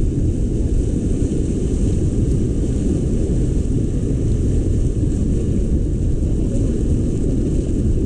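Steady low rumble of fast river water rushing past an inflatable raft, mixed with wind buffeting the camera's microphone, with a faint hiss above it.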